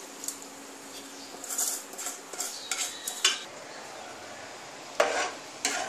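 Metal bowl clinking and scraping against the rim of an aluminium cooking pot as dry fried moong dal is tipped and tapped out into hot water, a few light clatters over the first three seconds. Two sharper metal knocks near the end, over a soft steady hiss.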